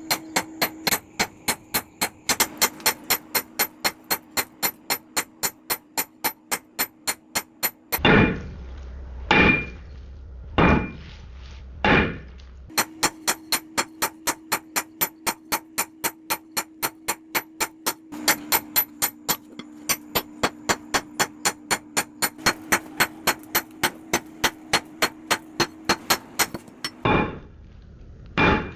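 Hammer striking metal on an anvil: a fast, even run of light strikes, about four or five a second, broken in the middle by four heavier blows spaced more than a second apart, then another fast run and two more heavy blows near the end, with a steady hum underneath.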